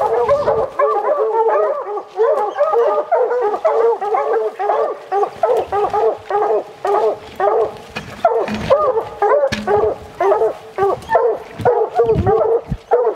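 A pack of hounds barking and baying without a break, several dogs at once, the sound of bear dogs holding a black bear up a tree. A few low thumps come through about two-thirds of the way in and near the end.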